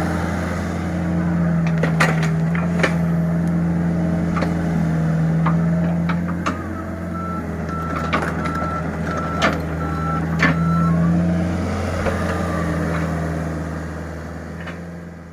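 Diesel engine of the excavator or dump truck running steadily, with a string of evenly spaced reversing beeps for a few seconds in the middle and several sharp knocks scattered through. The sound fades out at the end.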